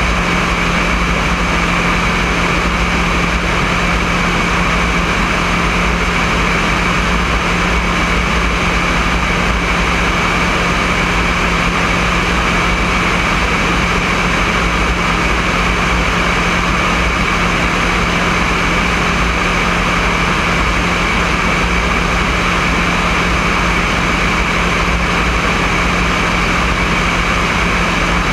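Alpi Pioneer 200 light aircraft's engine and propeller running steadily in level flight: a constant drone with a steady low tone, a fixed higher whine and a rush of wind, heard from a camera mounted under the wing.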